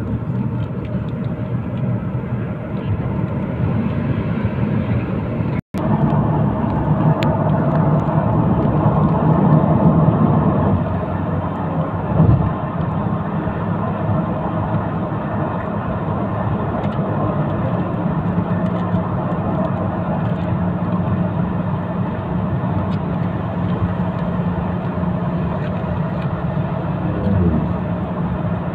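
Steady road and engine noise heard from inside a vehicle moving at highway speed: a low hum with tyre hiss. The sound drops out for a split second about six seconds in, and there is a short thump about twelve seconds in.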